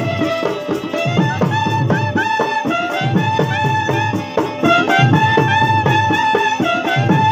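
Live folk music: a held, sliding lead melody over a fast hand-drum rhythm.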